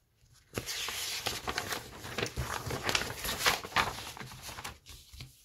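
Sheets of paper rustling and crackling as they are slid and shifted on a desk, starting about half a second in and dying away near the end.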